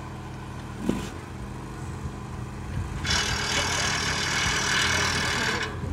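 Machinery engine running steadily with an even hum. A loud steady hiss starts suddenly about halfway and cuts off just before the end.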